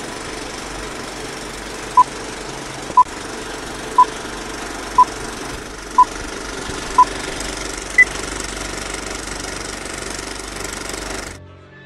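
Film-countdown leader sound effect: a steady film-projector rattle, with a short sharp beep once a second six times, then one higher-pitched beep a second later. The rattle stops suddenly about eleven seconds in.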